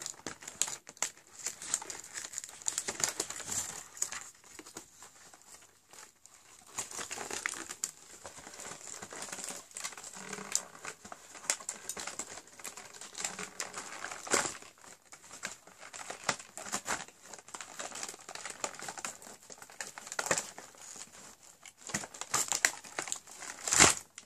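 Packaging crinkling and tearing in irregular bursts as a cardboard advent calendar door is torn open and the small bath fizzer inside is handled and unwrapped, with one sharper, louder crackle near the end.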